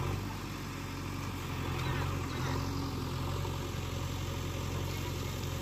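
JCB 3DX backhoe loader's diesel engine running steadily while its backhoe arm digs and lifts mud.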